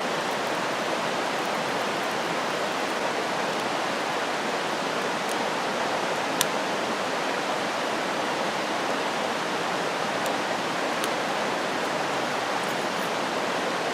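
Steady rushing of a creek or small waterfall, with a few faint ticks.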